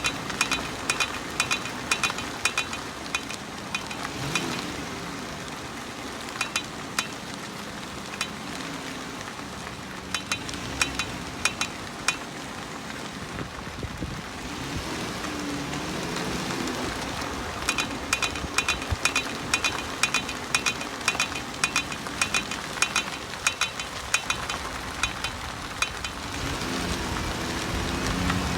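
Front wheel of a Dodge Grand Caravan clicking while driving: a fast run of sharp metallic clicks whose rate follows road speed. The clicks are dense at first, thin out in the middle, and quicken again over the last ten seconds. The cause is mysterious: a new hub bearing and a new CV axle did not cure it.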